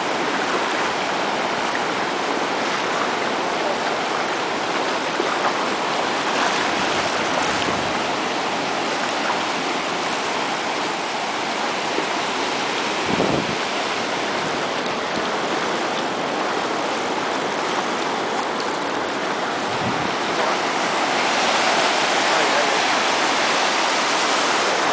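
Ocean surf breaking and washing up the sand in a steady rush, growing louder near the end as a wave's foam runs in close.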